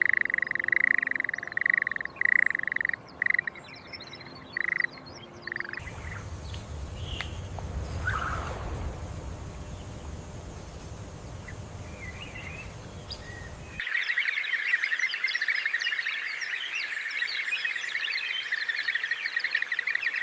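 Edited wetland wildlife ambience in three sections. First come pulsing calls repeating every half second or so. About six seconds in they cut to a low rumble with a few scattered chirps. Around fourteen seconds in a dense chorus of chirps takes over.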